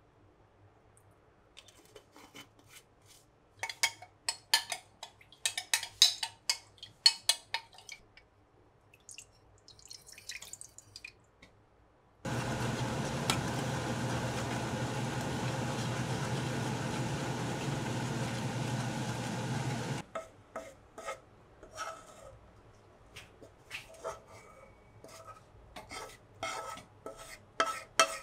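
A metal spoon stirring and clinking in a glass jug of sauce. Then about eight seconds of steady hiss with a low hum as the sauce heats in a frying pan on an induction hob, which starts and stops abruptly. Then a spoon scraping and tapping the pan as the sauce is poured into a glass beaker.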